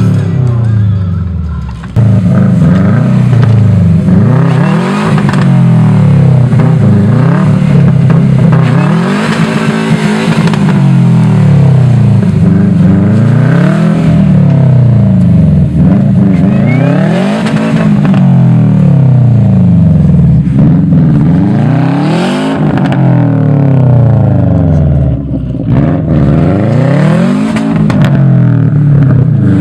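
A 2012 Subaru WRX's turbocharged 2.5-litre flat-four revving up and falling back over and over, about every two and a half seconds. The car is spinning its wheels, rocking to drive itself out of a deep snowbank.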